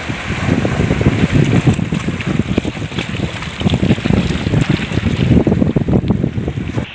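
Strong wind buffeting the microphone in irregular gusts, with shallow seawater and surf splashing underneath.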